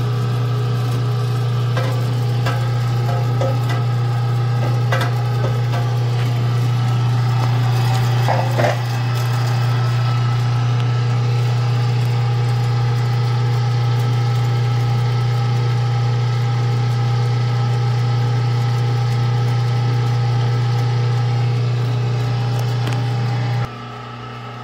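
Cabela's Carnivore #12 3/4 hp electric meat grinder running steadily as it grinds beef chuck roast on a second pass, a loud even motor hum with a few light knocks. The hum cuts off shortly before the end.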